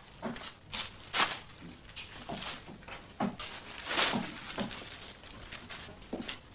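A bag rustling and crinkling as it is handled, in a string of short rustles.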